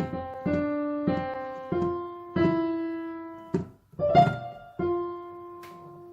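Piano playing a slow melody of single notes, each struck and left to ring and die away.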